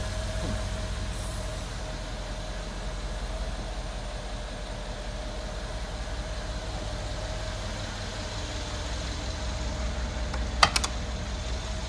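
Mercedes-AMG G63's twin-turbo V8 idling steadily with a low rumble. Near the end, a quick cluster of sharp metallic clicks as a door latch is opened.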